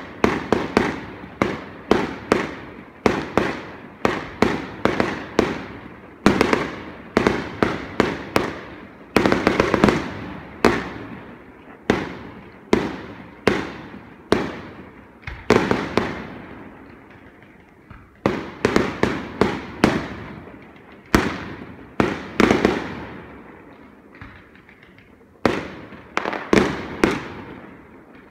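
Aerial fireworks exploding in rapid, irregular succession: sharp bangs, often several a second, each followed by an echoing tail, with a couple of brief lulls in the second half.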